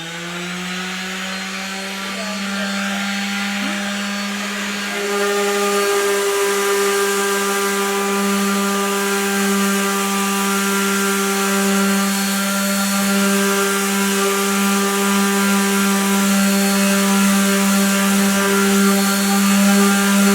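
Electric power-tool motor that has just spun up, running at a steady constant speed with a continuous whine, growing louder about five seconds in.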